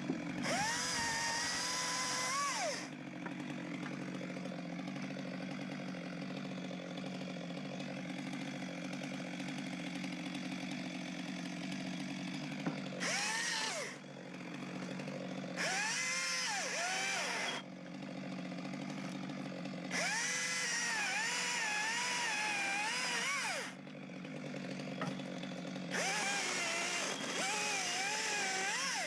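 Petrol chainsaw idling, revved up to high speed five times, for one to four seconds each, its pitch wavering while held high before it drops back to idle.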